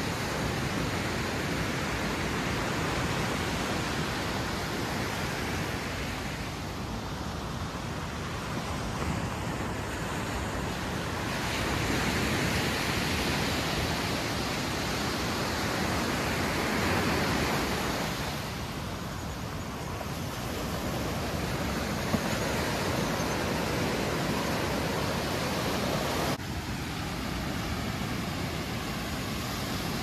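Ocean surf breaking and washing up on a sandy beach: a steady rush of water that swells and eases over several seconds. Near the end the sound drops abruptly to a slightly softer rush.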